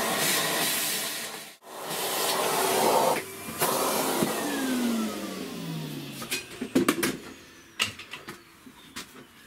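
Henry vacuum cleaner running, then switched off, its motor whine falling in pitch as it spins down. Several sharp knocks follow near the end.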